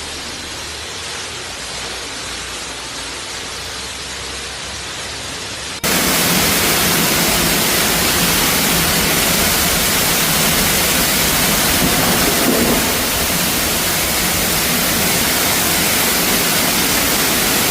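Heavy rain hissing steadily. About six seconds in the sound cuts abruptly to a much louder, harsher rush of water that holds steady.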